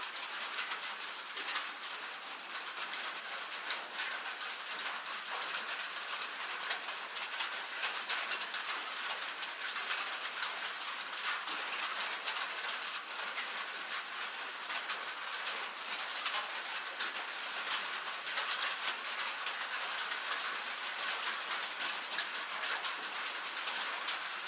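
Light rain falling on a metal roof: a steady, dense patter of many small drop ticks.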